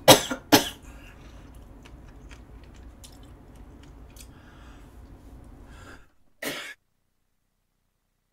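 A woman coughing hard twice in quick succession, food caught in her throat, then a low steady room hum and one more short cough about six seconds in, after which the sound cuts off completely.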